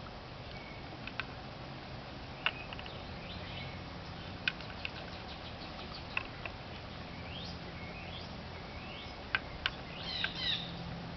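Chickens drinking: sharp, scattered clicks of beaks striking the water dish, with several short rising chirps from the birds, bunched together near the end, over a faint low hum.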